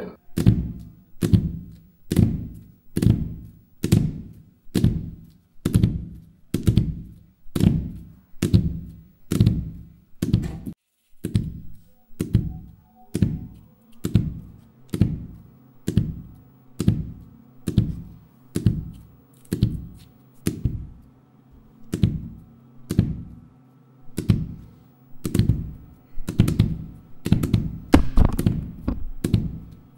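Rubber bouncy ball bounced repeatedly on a hard surface, a thunk with a short low ring about once a second in a steady rhythm. A faint steady hum comes in about halfway through.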